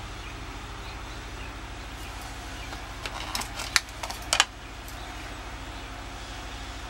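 A quick run of sharp clicks and taps about three to four and a half seconds in, over a steady low hum.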